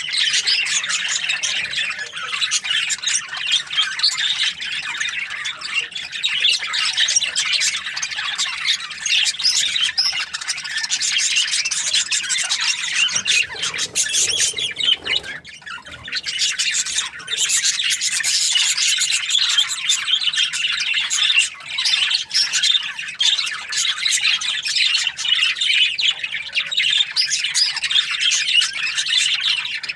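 A group of budgerigars chirping and chattering without a break, a dense high-pitched twitter that dips briefly twice near the middle.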